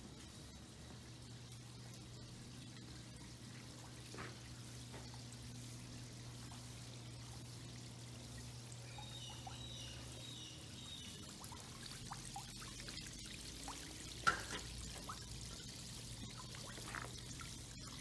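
Water from a weeping-wall fountain sheeting down stone-clad panels and pouring into the basin at its foot: a faint, steady pour and trickle. A single sharp click sounds late on.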